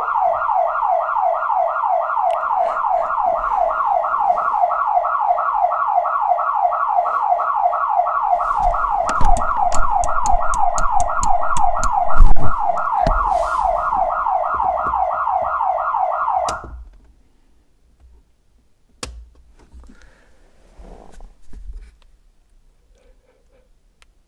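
Aftermarket electronic alarm siren set off by a dummy kill switch, muffled by a towel and the closed hood: a fast, even warble of about three to four sweeps a second. It cuts off abruptly about two-thirds of the way through as it is switched off. A few knocks and thumps sound over it, and a single click follows a couple of seconds after it stops.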